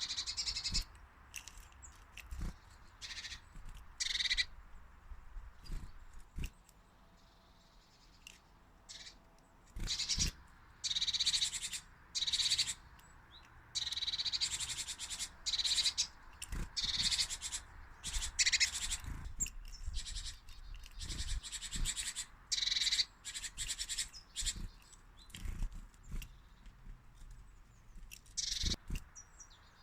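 Small songbirds chirping and calling in many short bursts throughout, with a few soft knocks among them.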